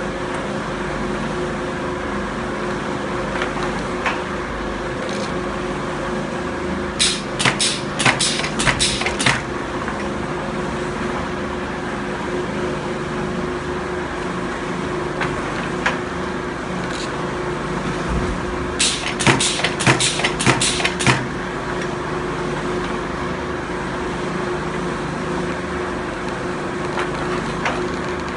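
Filter press running with a steady machine hum. Two bursts of rapid knocking, a third of the way in and again about two-thirds through, each lasting two or three seconds, as the pneumatic plate shaker rattles a plastic filter plate up and down to shake the filter cake loose.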